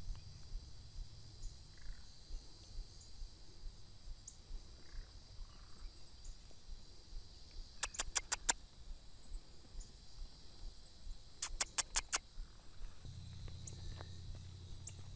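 Steady high insect drone of a summer field, with two short runs of about five rapid sharp chirps, about eight and twelve seconds in. A low rumble comes in at the start and again near the end.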